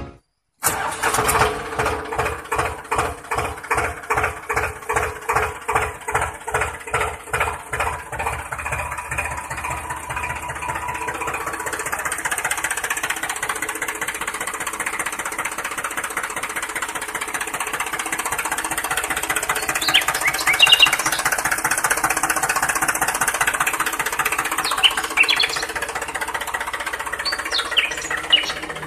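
Tractor engine starting: slow chugging pulses that quicken over the first ten seconds and settle into a steady running sound. A few short high chirps come in the last third.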